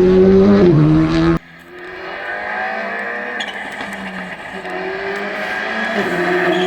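Rally car engines at speed on a stage: a loud engine held at steady high revs cuts off abruptly about a second and a half in, then another rally car is heard further off, its engine pitch rising through the gears as it grows louder toward the end.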